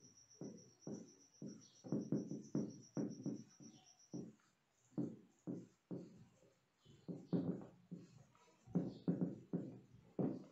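Whiteboard marker squeaking and scraping across the board in a run of short, irregular strokes as words are written out.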